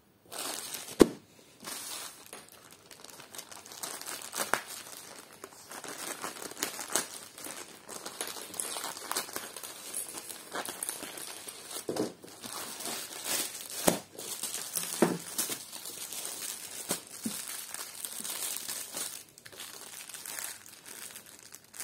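Plastic packaging crinkling and rustling as hands handle it: a poly courier mailer being slit open with a knife, then clear plastic film around the pillowcases. A few light knocks stand out now and then.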